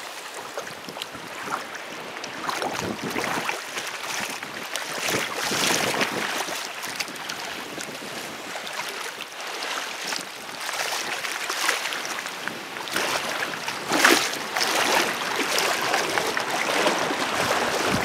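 Shallow seawater sloshing and swishing around a person's legs as he wades toward shore, in irregular surges, against a steady background of wind and small waves.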